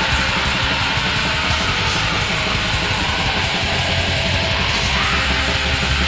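Black metal band recording: distorted electric guitars, bass and drums playing as a dense, unbroken wall of sound at a steady loud level.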